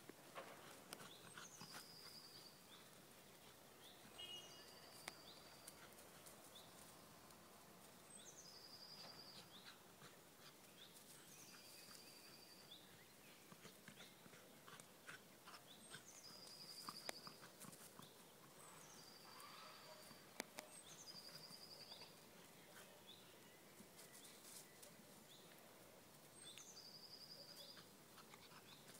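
Faint garden ambience: a songbird repeats a short high phrase every few seconds, a quick downward slur ending in a brief trill, over soft background hiss with a few faint ticks.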